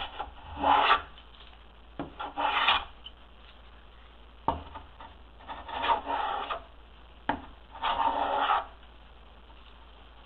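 Hand plane taking four short shaving strokes along the edge of a wooden board, each a brief scraping hiss, with a sharp knock a moment before each stroke. The strokes round the edge over into a bullnose.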